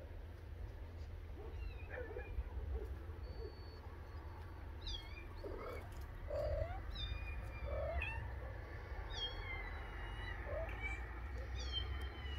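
Tabby kittens mewing: a string of short, high calls, most of them from about five seconds in, several falling in pitch, over a steady low rumble.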